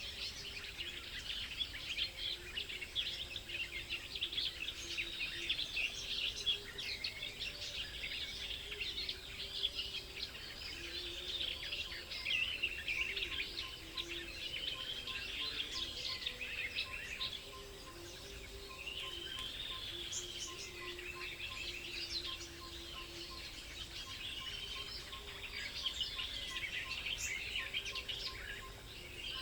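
Many small songbirds chirping and calling together, quick overlapping chirps and arching call notes throughout. A faint, evenly spaced ticking runs underneath from about halfway.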